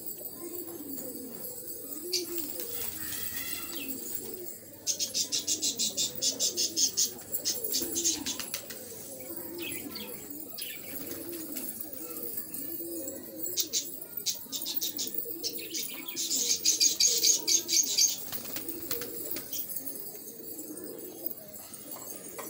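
Domestic pigeons cooing over and over in low, rolling calls. Twice, about five seconds in and again around sixteen seconds in, a burst of rapid high-pitched pulses rises above the cooing and is the loudest sound.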